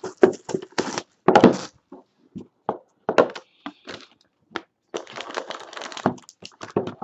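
Plastic shrink-wrap being torn off a sealed Panini Court Kings basketball card box and the cardboard box opened by hand: irregular crackling and crinkling with sharp clicks, busiest about five seconds in.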